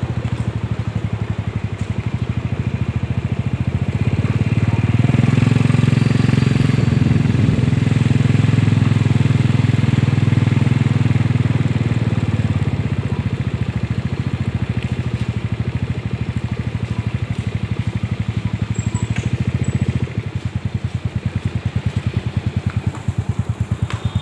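Motorcycle engine running under way, a steady low pulsing drone mixed with road and air noise. It swells about four seconds in, eases off after about twelve seconds, and drops back near the twenty-second mark.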